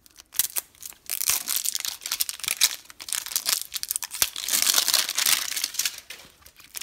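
Plastic wrapping of an L.O.L. Surprise toy ball being torn and peeled off by hand: a dense crinkling crackle with many sharp clicks, heaviest about four to five seconds in.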